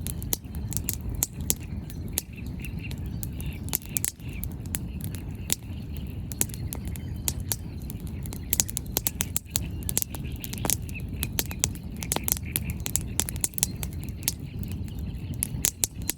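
Wood bonfire crackling, with frequent sharp pops and snaps of burning firewood over a steady low rumble. Birds chirp faintly.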